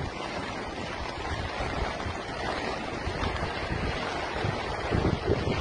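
Steady rush of a swollen river in flood, with wind buffeting the microphone in gusts that grow heavier near the end.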